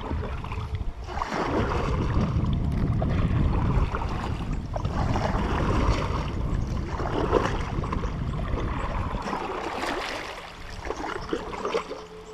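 Water splashing and rushing around a fishing kayak as it is paddled along, with wind rumbling on the microphone; the rumble eases off near the end.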